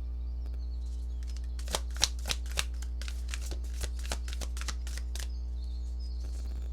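Tarot cards being shuffled by hand: a quick run of card snaps and flicks, loudest about two seconds in, then trailing off into lighter taps, over a steady low hum.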